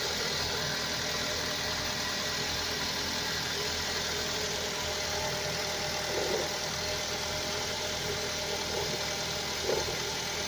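Car engine idling under the hood, running steadily, with two brief louder blips about six and ten seconds in. An unwanted extraneous noise in the engine bay is what is being demonstrated.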